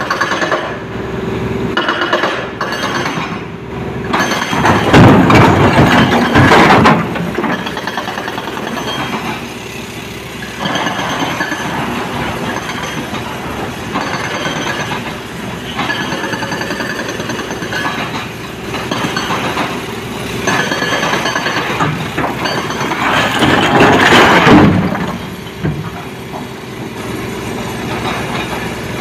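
Diesel excavator engine running steadily while loading a tipper truck, with two loud, rattling crashes of rock being dumped into the truck's steel body, one a few seconds in and one near the end.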